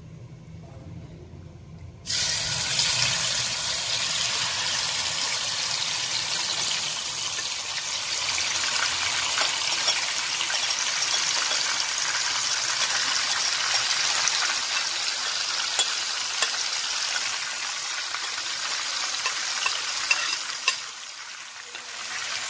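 Yogurt-marinated chicken pieces tipped into hot oil in a non-stick kadai, starting to sizzle suddenly about two seconds in. A steady, loud frying hiss follows, with a few sharp spattering pops, easing a little near the end.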